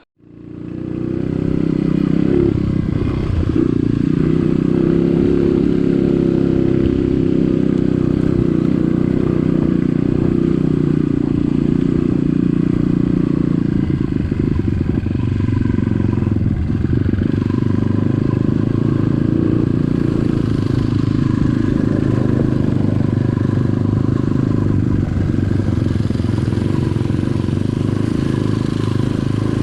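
Trail motorcycle engine running at a steady pace under way, coming up quickly in the first second or two and then holding a fairly even drone.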